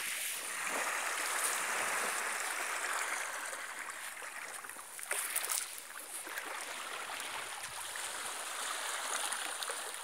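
Small sea waves lapping and washing over a sandy, shelly shore: a steady hiss of water.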